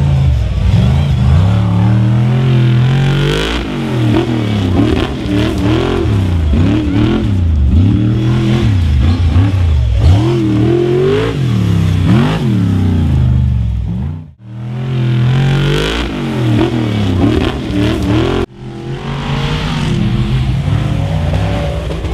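Formula Offroad hill-climb buggy's engine revving hard, its pitch rising and falling again and again as the throttle is worked. The sound breaks off abruptly about two-thirds of the way through and again a few seconds later, then the revving carries on.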